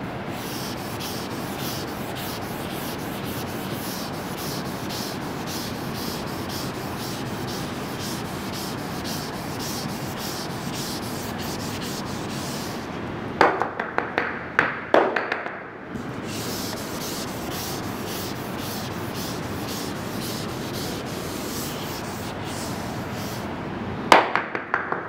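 A board duster being rubbed back and forth across a classroom board, erasing it in quick, even strokes, several a second. Two short clusters of sharp knocks come about halfway through and again near the end.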